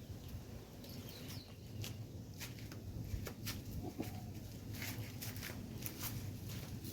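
Backyard chickens foraging: scattered light clicks and rustles with a couple of faint short calls, over a steady low rumble.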